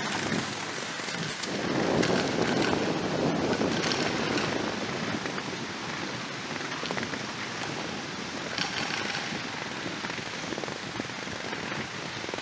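Skis sliding over packed spring snow while towed uphill by a surface ski lift: a steady crackling hiss that swells a little a couple of seconds in.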